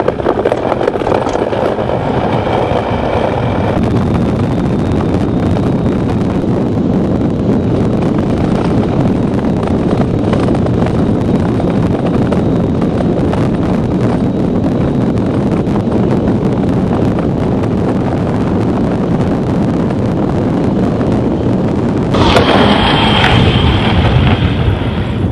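Ice yacht sailing fast on black ice: a steady rushing rumble of the steel runners on the ice and wind on the microphone. About three seconds before the end it turns louder and brighter, with a thin high whistle over the hiss.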